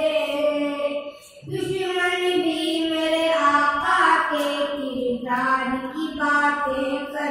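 Boys singing a naat, an Islamic devotional poem, with voice alone: long held, wavering melodic notes, with a short break for breath about a second in.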